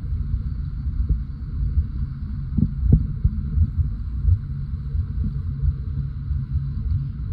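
Underwater sea ambience: a muffled low rumble of moving water, uneven and fluttering, with a few soft thumps.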